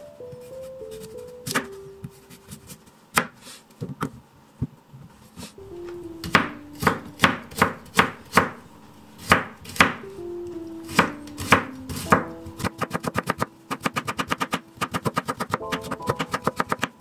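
Chef's knife chopping carrot on a bamboo cutting board: separate, uneven cuts at first, then, about three-quarters through, a fast, even run of strokes, several a second, as the slices are cut into matchsticks.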